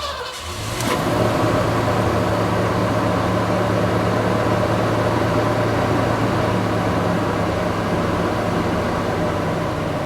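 Ford Ranchero's carbureted engine catching about a second in, then running steadily.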